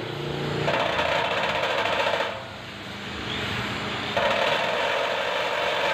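Electric hand drill spinning a small grinding disc against a steel sheet, grinding the metal in two spells with a quieter stretch of about two seconds between them.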